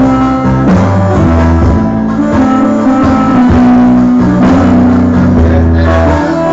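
Instrumental music: an improvised solo over long held bass notes.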